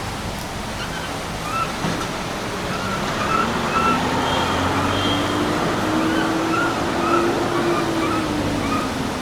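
Japanese macaque infant giving short, high, arched calls over and over, over a steady rushing noise. Under them a low tone slowly rises and falls.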